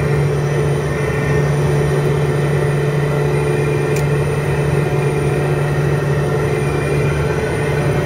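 Cockpit noise of a Piper JetProp in flight: its PT6A turboprop engine and propeller make a loud, steady drone with a low hum running through it. A light click about halfway through.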